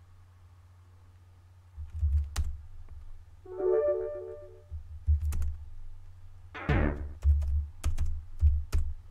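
Computer keyboard keystrokes in a few short bursts, each click with a low thud.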